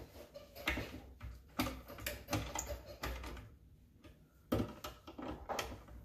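Irregular light clicks and knocks as a cabinet latch screw is tightened by hand with a manual screwdriver, with a quiet second about halfway through.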